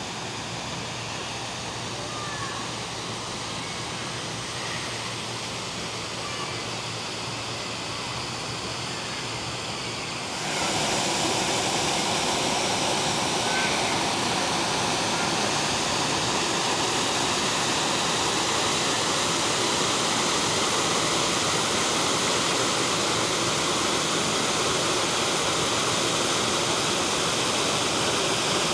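Waterfall rushing steadily, a constant spray of falling water that gets suddenly louder about ten seconds in.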